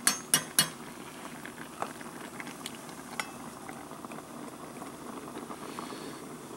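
Pasta water boiling in a metal pot on a small pocket stove, a steady bubbling, with three sharp metal clinks against the pot in the first second.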